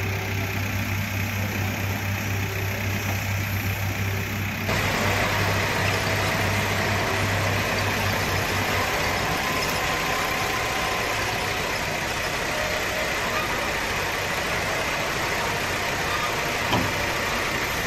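Diesel engines of a JCB 3DX backhoe loader and a Mahindra tractor running at close range. A steady low hum gives way to a louder, rougher engine sound about five seconds in.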